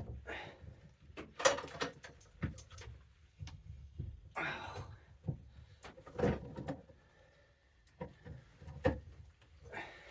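Irregular knocks, clicks and a scrape from hand work on a stuck ice-auger drill bit clamped in a vise, as it is forced loose.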